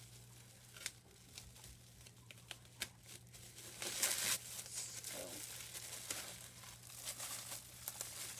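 Packaging crinkling and rustling as it is handled, with scattered clicks and light knocks; loudest about four seconds in.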